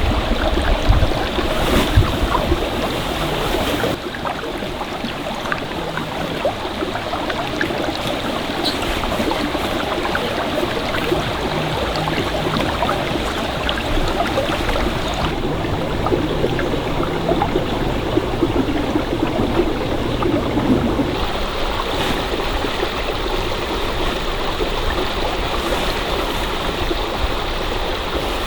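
Stream water running over rocks, a steady rushing and babbling. A few low thumps sound near the start.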